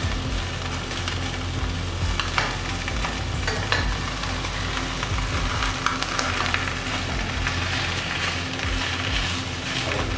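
Minced pork sizzling in a stainless steel pot while a slotted spatula stirs and breaks it up, with a few sharper scrapes and taps of the spatula against the pot.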